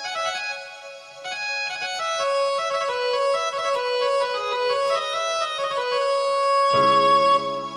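Casio CTK-2550/CTK-2500 keyboard playing a melody of held notes on one of its Indian-style preset tones. Lower notes join in about seven seconds in.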